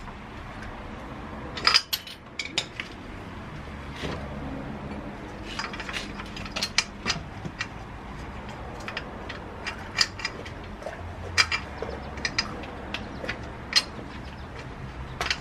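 Irregular metallic clicks and clinks of parts being handled as a dirt bike's rear wheel is fitted back on, with the loudest knocks about two seconds in and again near the end.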